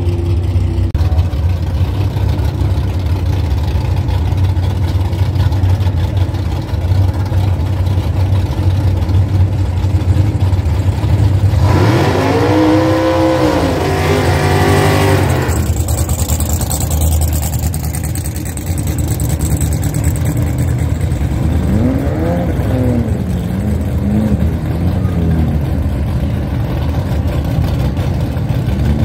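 Drag race car engines: a steady low idling rumble throughout, with a loud burst about twelve seconds in where an engine's pitch climbs and falls for about three seconds, and a few quicker revs, pitch going up and down, a little past twenty seconds in.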